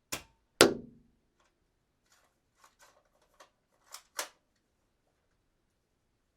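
Dart gun: a click, then one loud sharp shot with a short low thud. A run of faint mechanical clicks and two sharper clicks about four seconds in follow, the gun being cocked.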